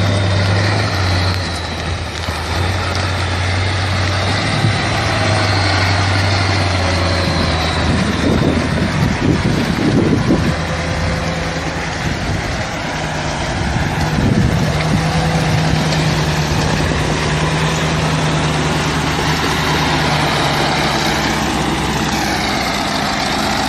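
KAMAZ truck's diesel engine running under load as the truck creeps past through snow and slush. The engine note steps up to a higher, steady pitch a little past the middle.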